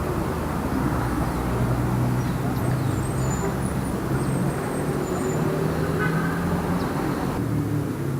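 Light city traffic: a steady wash of road noise with the low hum of passing car engines.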